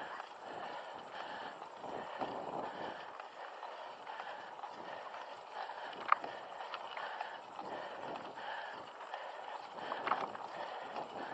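Mountain biker breathing hard in a steady rhythm on a climb, with a sharp click about six seconds in and a smaller one near the end.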